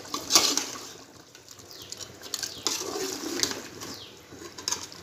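A metal spoon working through stewed meat and gravy in a cooking pot: wet sloshing and squelching of the thick liquid, with a few sharp clinks of the spoon against the pot. The meat is cooked tender enough to fall apart.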